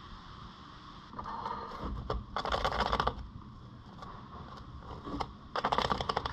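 A Netherland Dwarf rabbit digging and scratching at a corrugated cardboard scratcher with its front paws. The sound comes in bursts of rapid rasping scratches: a short one about a second in, then two longer, louder ones near the middle and the end. It is heard muffled through a camera housing.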